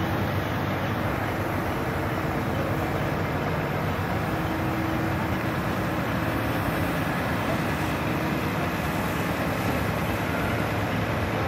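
Fire engine's pump running steadily under load, driving a high-pressure water jet through a hose.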